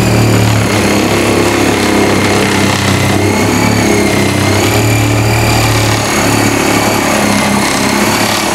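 Motor of a homemade battery-powered power tool running steadily under load as it works into a door, its whine wavering slightly in pitch over a low hum.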